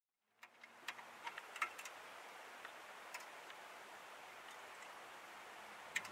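Scattered light metal clicks as the bike rack's wrench, hitch pins and wire spring clips are handled, over a faint steady hiss; the clicks bunch in the first two seconds, the loudest about a second and a half in, with one more near the end.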